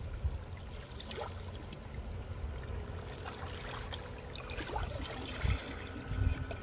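Water trickling and lapping, with a few faint clicks scattered through and a low rumble underneath.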